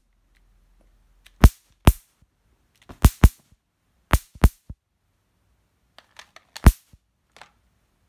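Electric mosquito swatter racket zapping insects on its charged wire mesh: sharp cracks, singly and in quick pairs and clusters, with quiet gaps between.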